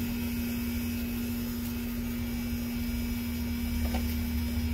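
A steady hum at one constant pitch with a low rumble beneath it, unchanging throughout, with no distinct knocks or scrapes.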